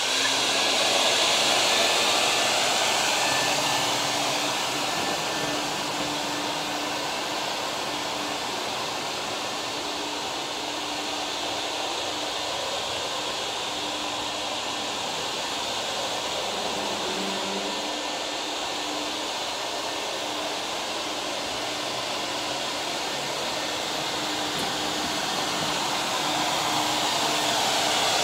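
Ruwac Red Line walk-behind industrial vacuum running steadily, a constant motor tone over the rush of air through its 32-inch floor sweep tool as it sucks up silica dust. It is louder for the first few seconds and again near the end, when the machine is close, and quieter in between while it is farther off.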